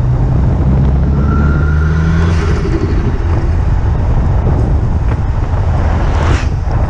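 Turbocharged car engine pulling under load, with a faint turbo whistle rising from about a second in; the engine note then drops away. Near the end comes a brief sharp rising rush, the turbo fluttering as the throttle closes, over steady road and wind noise.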